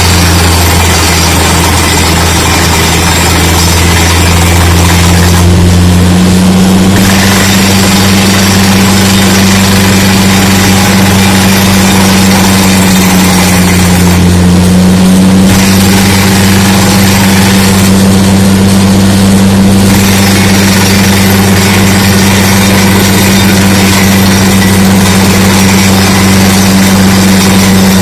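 Truck-mounted DTH (down-the-hole) drilling rig running while drilling: a loud, steady low engine drone under a dense rushing hiss, with air blasting dust and cuttings out of the borehole. The hiss drops away briefly three times.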